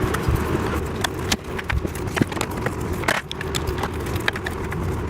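Irregular light clicks and knocks of office-chair parts and bolts being handled while the bolts are started by hand, over a steady low background rumble.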